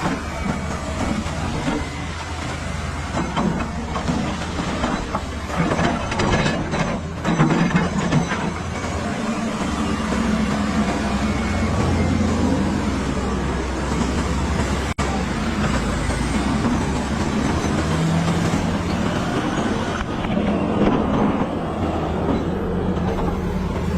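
Caterpillar crawler bulldozer's diesel engine running steadily under load, with its steel tracks clanking. The clatter and noise rise for a couple of seconds about a quarter of the way in.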